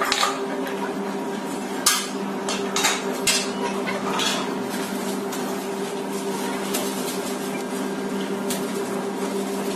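Steel legs and crossbeams of a large-format printer stand clanking as they are handled and set down on a concrete floor: scattered sharp knocks, the loudest about two and three seconds in, over a steady hum.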